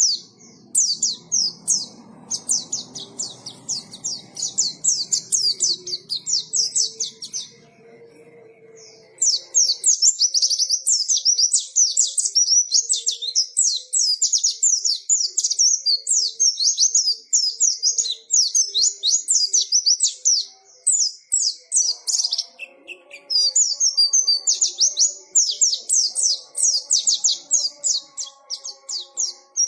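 White-eye (pleci) singing a long, fast, high-pitched twittering song of rapid chirps, breaking off briefly about nine seconds in and again about twenty-one seconds in. A faint low background noise runs under the song for the first nine seconds.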